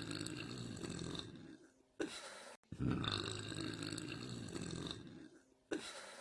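Two long, deep burps from a girl, each let out slowly over about two and a half seconds, with a short sound after each.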